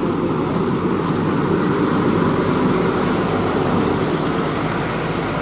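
Heavily loaded diesel lorries driving up the highway and passing close by, their engines running steadily.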